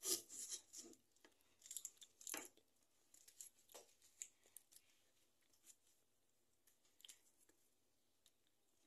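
Thin, dry onion skin being peeled and torn off by fingers and a knife: faint, scattered crackling and tearing rustles, busiest in the first few seconds.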